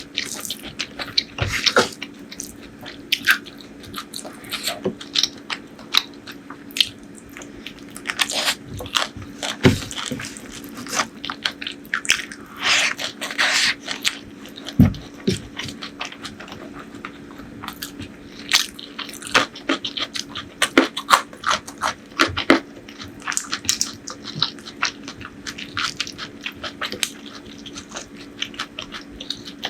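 Close-miked eating sounds from a meal of curry and rice: chewing and biting with many short, sharp mouth clicks and smacks in quick, irregular succession. A faint steady hum sits underneath.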